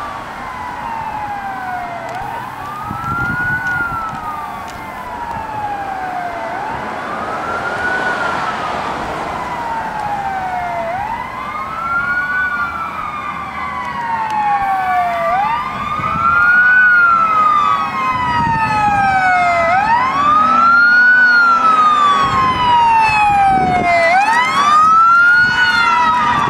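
Emergency-vehicle siren wailing in slow cycles about every four and a half seconds, each rising quickly and falling slowly. From about halfway a second, higher siren joins with faster sweeps, along with a steady tone, and the sirens grow louder as the vehicles approach.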